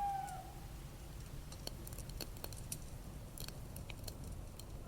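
Campfire crackling: scattered sharp pops and snaps over a low steady rumble. A held bird call trails off in the first half second.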